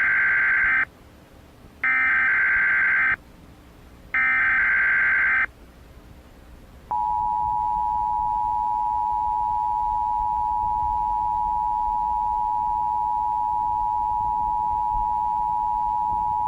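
Emergency Alert System test signal. It opens with three short bursts of SAME digital header data, each about a second long. About a second and a half later the steady two-tone EAS attention signal (853 and 960 Hz) starts about seven seconds in and holds, marking the start of a coordinated monthly test.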